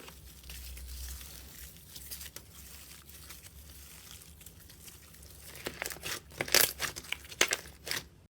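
Slime being pressed and stretched, with a steady crinkly crackling and sharp little pops of air. The pops grow louder and more frequent in the last few seconds.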